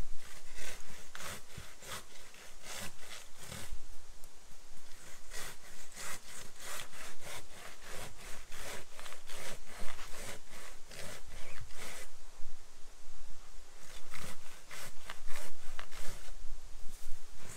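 Silky folding hand saw cutting into wood in steady back-and-forth strokes, about two a second. The sawing stops for about two seconds roughly two-thirds of the way through, then resumes.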